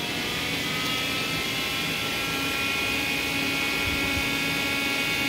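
Steady electric machine whine in several high tones over a low hum, the tones rising slightly in pitch during the first couple of seconds and then holding level.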